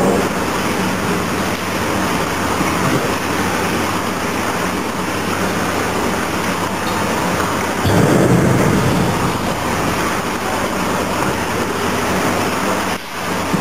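Cattle head and feet dehairing machine running: a loud, steady rushing noise that swells briefly about eight seconds in and dips for a moment near the end.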